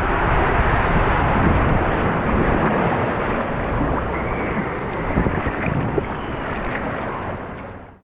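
Rushing water as a raft tube slides out of the water slide's enclosed tube into the splash pool, then quieter water sloshing around the floating tube, with a few small splashes or knocks about five to six seconds in. The sound fades out near the end.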